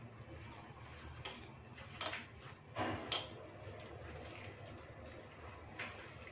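Hands mixing and kneading wheat-flour dough with jaggery water in a steel bowl, faint, with a few sharp clinks against the steel about two, three and six seconds in.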